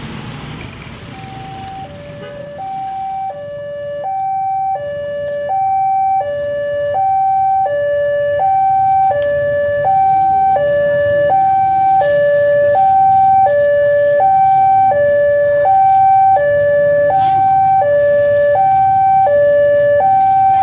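Railway level-crossing warning alarm sounding: an electronic two-tone signal alternating a high and a low note, each held just under a second. It starts about a second in and grows louder over the first ten seconds or so, the warning that a train is approaching and the crossing is closing.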